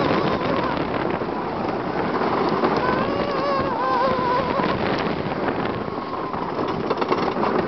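Wooden roller coaster train rattling along the track with wind rushing over the microphone, and riders yelling; one long wavering yell comes about three seconds in.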